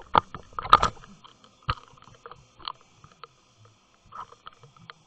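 Irregular knocks and clicks picked up through an underwater camera's housing, with a quick run of loud ones in the first second and sparser, fainter ones after, over a faint steady high tone.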